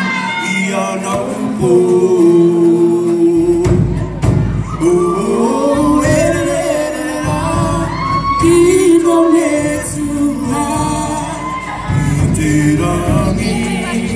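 Live group singing of a Cook Islands song with instrumental accompaniment. Heavier low drumming comes in about three and a half seconds in.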